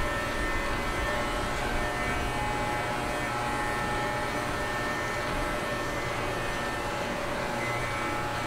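Electric dog-grooming clippers running with a steady buzzing hum as they are worked through a dog's coat.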